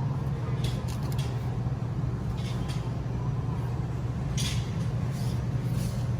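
Steady low mechanical hum, with short rustling or scraping noises a few times, the strongest about four and a half seconds in.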